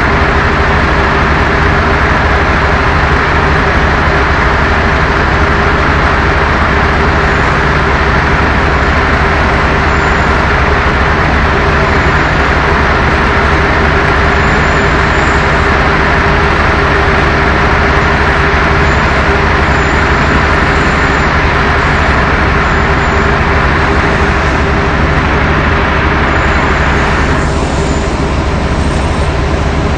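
A loud, steady engine running, with a constant low hum under a broad rushing noise. Its higher part drops slightly near the end.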